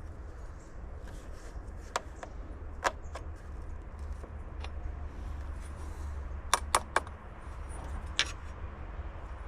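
Scattered sharp clicks and clinks, with three in quick succession about two-thirds of the way through, over a steady low rumble.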